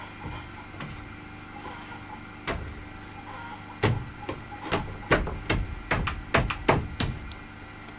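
Hammer blows on wood: a single blow, then a quick run of about ten more, irregularly spaced at two or three a second.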